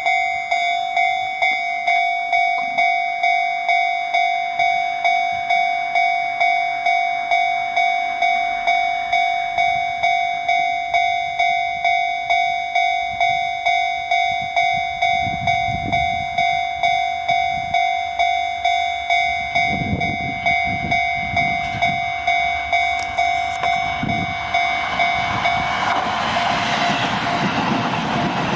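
Electronic warning bell at a Japanese railway level crossing, ringing about twice a second. From about halfway, the low rumble of an approaching Shin-Keisei electric train comes and goes. Near the end the noise of the train passing through the crossing swells over the bell.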